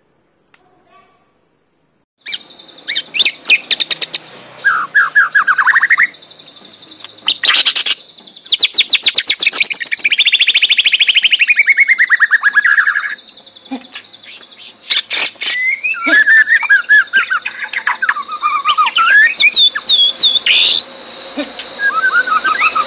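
White-rumped shama (murai batu, Medan type) singing loudly in agitated full song after a brief silence about two seconds in: a fast, varied run of trills, rising and falling whistles and rapid repeated notes with hardly a pause.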